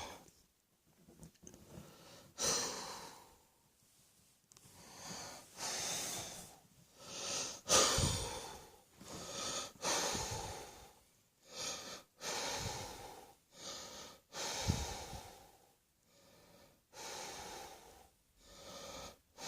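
A person breathing hard and noisily, catching their breath after a coughing fit, in a long run of separate breaths with short pauses between them.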